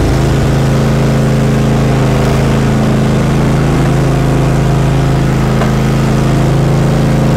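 Cub Cadet XT3 garden tractor's engine running at a steady speed while the tractor is driven.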